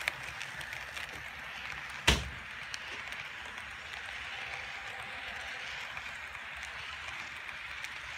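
HO scale model freight train rolling past, its wheels giving a steady whirring rattle on the track, with one sharp knock about two seconds in.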